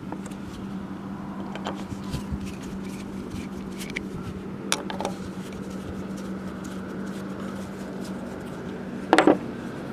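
Screwdriver working at the point cover of an old Briggs & Stratton engine: small scattered metal clicks and scrapes, a sharper click about halfway, and a louder double knock near the end, over a steady low hum.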